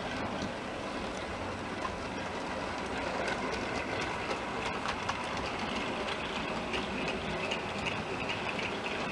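Model trains running on layout track: a steam-outline locomotive with mineral wagons and a diesel with hopper cars rolling past, a steady whirr of wheels and motors with small clicks over the rail joints. It gets a little louder, with a whine, from about three seconds in as the trains come close.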